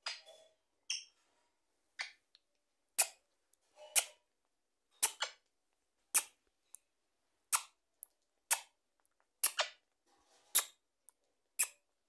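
Rose-ringed parakeet making short, sharp clicks, about one a second, some a little louder than others.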